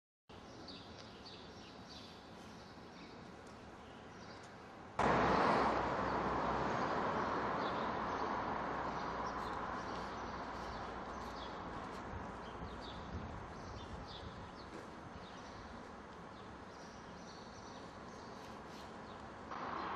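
Outdoor city street ambience: small birds chirping repeatedly over a steady hiss of traffic noise. The background noise jumps up suddenly about five seconds in, then slowly fades.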